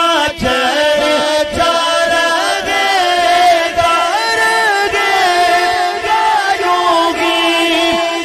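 A male naat reciter sings long, ornamented held notes into a microphone. A steady drone runs underneath.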